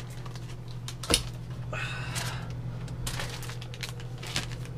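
Food containers and jars being handled and set down: a few scattered clicks and knocks, the sharpest about a second in, over a steady low hum.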